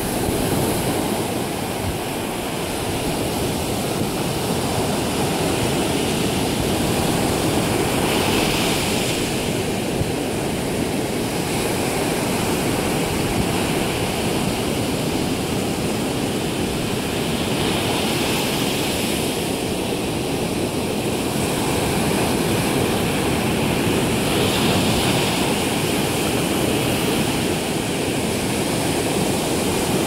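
Ocean surf breaking on a sandy beach: a steady wash of waves, with the hiss of foam swelling every several seconds as a wave breaks.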